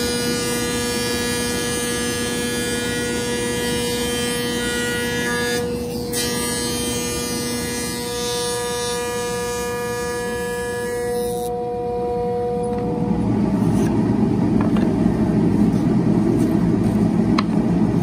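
Stationary woodworking machine running with a steady whine and a high hiss as thin wooden boards are fed through it. The hiss stops about eleven seconds in, the whine fades, and a louder, even low rumble follows.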